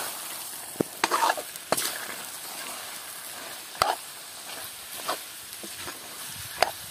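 Chicken frying in a large metal kadhai with a steady sizzle. A long metal spatula stirs it, scraping and clinking sharply against the pan several times.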